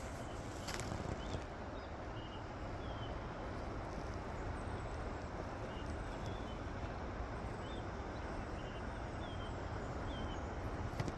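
Steady rushing of the Río Blanco waterfall, with a small bird chirping briefly about once a second over it.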